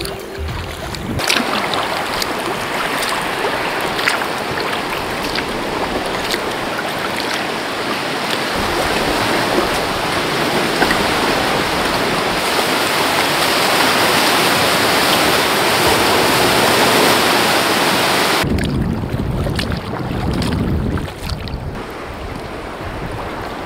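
Sea water sloshing and splashing around a kayak inside a sea cave: a steady hiss with scattered small splashes and drips. About three-quarters of the way through it changes abruptly to wind on the microphone over lapping water.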